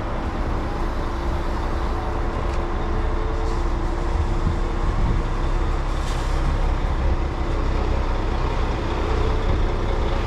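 Engine of heavy farm machinery running steadily at a constant speed, with a steady hum over it.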